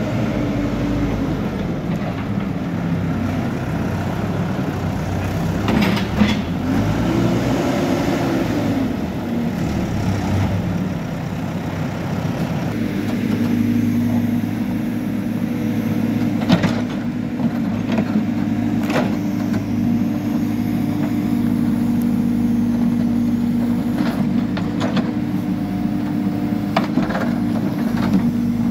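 Hidromek backhoe loader's diesel engine running, its pitch rising and falling as it drives, then holding a steady strained note under hydraulic load as the backhoe digs. Several sharp knocks come from the bucket and arm striking the earth.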